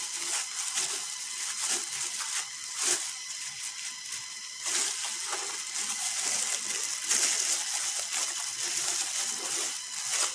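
A gloved hand working a towel through wet cement slurry in a plastic bucket, making irregular wet squelching and sloshing sounds.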